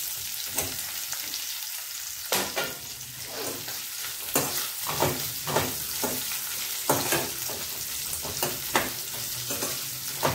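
Nuts and fresh coconut pieces sizzling in hot ghee in a stainless-steel kadhai on low heat, stirred with a steel spoon that scrapes and clinks against the pan about once a second, with a short pause about a second in.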